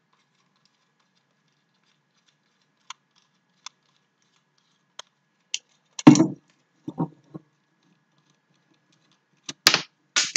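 Hand-held small permanent-magnet DC motor being taken apart: a few faint clicks, then a loud knock about six seconds in with a couple of softer knocks after it, and a run of sharp clicks and clatter near the end as the housing is worked open.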